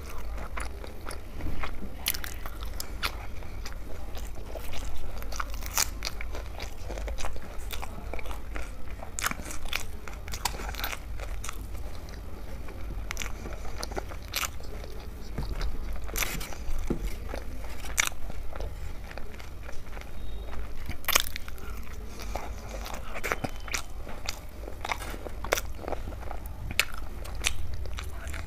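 Close-miked chewing and biting, ASMR-style: irregular wet mouth clicks and crisp crunches, with a steady low hum underneath. The food is roti dipped in daal makhni and raw salad.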